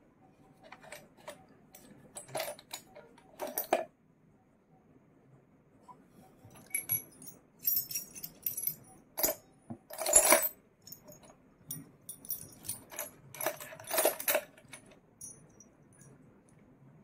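Small metal pieces jingling and clinking in scattered, irregular bursts, loudest about ten seconds in and again about fourteen seconds in, with a quieter spell around four to six seconds.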